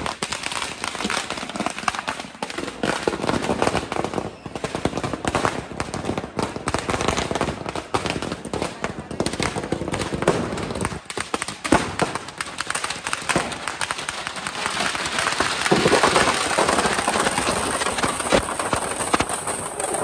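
Firecrackers going off in rapid succession, a dense continuous stream of sharp cracks and pops that grows louder about three quarters of the way through.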